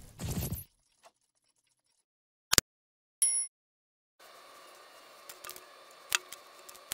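The end of an intro sound effect, then a sharp mouse-click sound and a short high ding from a subscribe-button animation. About four seconds in it gives way to faint room tone with a few light ticks.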